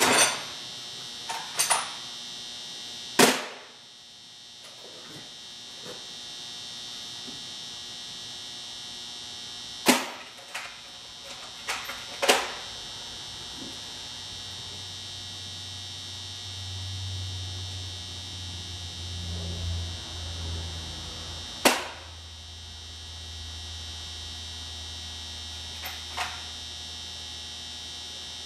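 Metal hand tools and a socket clinking and knocking on a workbench: half a dozen sharp knocks spread out, over a steady high-pitched electrical whine. A low hum swells for a few seconds past the middle.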